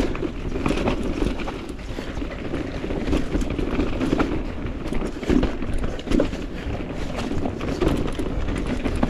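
Mountain bike riding down a dirt trail: steady tyre and frame rumble with many quick knocks and rattles, and wind buffeting the microphone.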